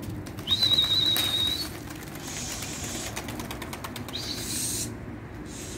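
A flock of domestic pigeons taking off, a rapid clatter of wing flaps. A high, steady whistle sounds about half a second in and lasts about a second, and a short rising whistle comes near the end.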